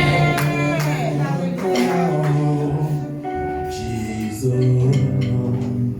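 Church music: voices singing over instruments, giving way to steady held notes about halfway through.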